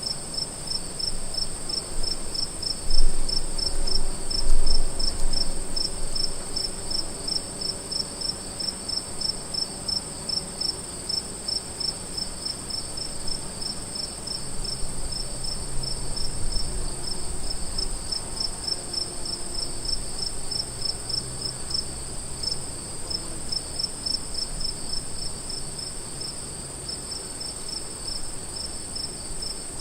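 Crickets chirping: an unbroken high-pitched trill with a steady, evenly pulsed chirping just below it, several chirps a second.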